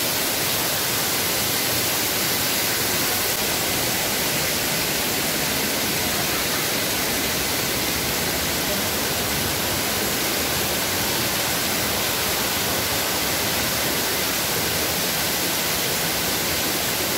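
Steady rush of white water from the canyon stream, loud and unbroken.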